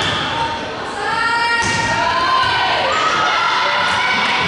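Indoor volleyball rally: thuds of the ball being hit, with players and spectators shouting and cheering over one another.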